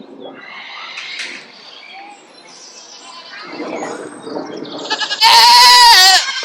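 A goat bleating: one loud, wavering bleat about five seconds in, after quieter background sounds.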